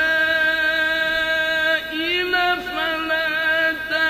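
A man reciting the Quran in melodic tajweed style, drawing out long sustained notes at a nearly steady pitch; the first held note breaks just before the two-second mark and a second long note follows.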